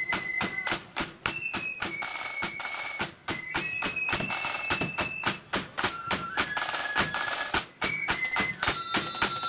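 Blood-and-thunder flute band playing a march: flutes carry the tune in held notes over fast, steady strokes from snare drums and a bass drum.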